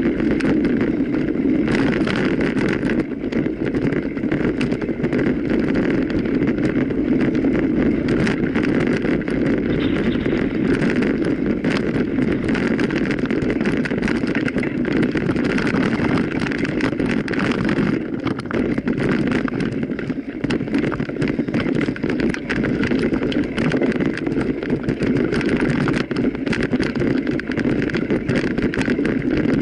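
Mountain bike ridden fast over rough trail: a steady rumble of tyres on the ground with constant small knocks and rattles from the bike.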